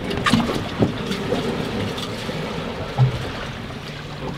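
Wind buffeting the microphone over waves slapping against a boat's hull, with a few short knocks near the start and a low thump about three seconds in.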